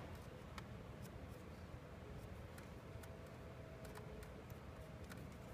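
Faint scattered ticks of a Torx security screwdriver turning the mounting screws of a motorcycle idle air control valve, over a low background rumble.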